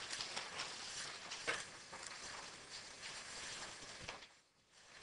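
Paper rustling and pages being handled and turned, with small scattered crinkles and knocks, while someone looks for a page in a bound document. It drops out briefly near the end.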